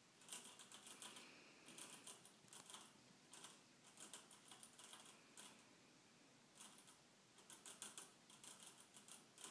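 Faint, irregular runs of small rapid clicks and crunches from chinchillas moving about in their wire cage.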